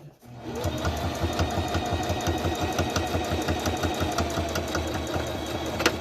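Domestic single-needle sewing machine stitching a seam at a steady, fast speed. It winds up just after the start and stops with a click near the end.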